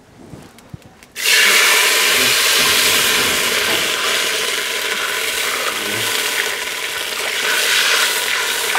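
Water poured into a hot metal pot of oil and cumin seeds for jeera rice, sizzling and hissing hard. The loud hiss starts suddenly about a second in, stays steady and cuts off at the end.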